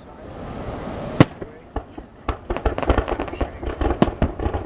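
Fireworks: a rushing hiss for about the first second, a single loud sharp bang, then a rapid run of crackling pops through the rest.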